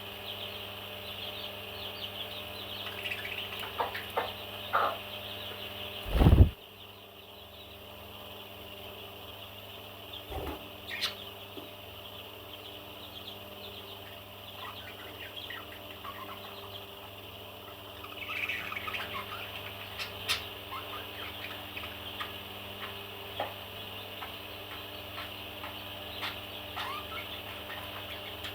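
Parrots chirping and chattering steadily as a busy flock, with a louder flurry of calls about two-thirds of the way through. A loud thump about six seconds in, and a softer one a few seconds later.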